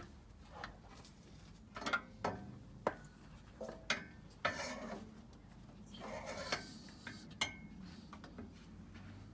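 Metal clinks and knocks, with a couple of short scrapes, as a V8 engine is worked against the gearbox bell housing to line the two up.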